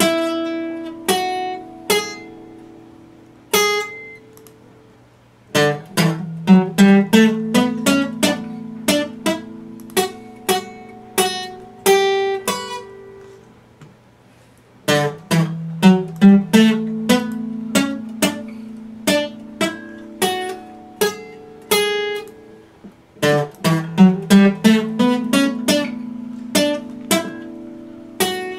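Epiphone acoustic guitar played solo, plucked note by note over ringing bass notes, in repeating phrases with short quiet pauses between them.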